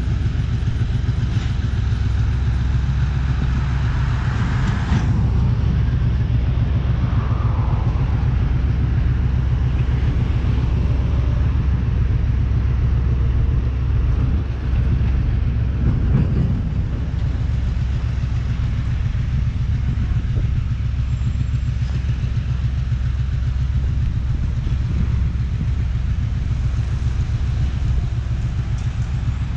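Steady low engine drone of a distant diesel freight locomotive, with a road vehicle going by about four to five seconds in.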